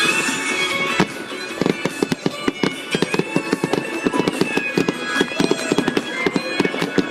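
Fireworks going off: a sharp bang about a second in, then a dense crackling barrage of many rapid pops a second, with music playing underneath.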